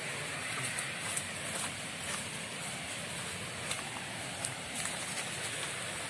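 Steady rushing outdoor noise with a few faint, irregular rustles and snaps from moving through bamboo undergrowth.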